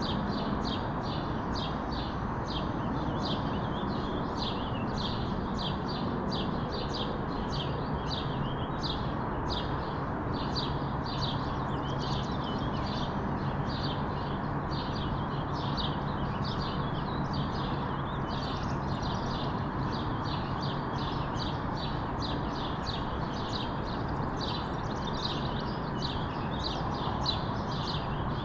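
Birds chirping, short high chirps about twice a second without let-up, over a steady background hiss.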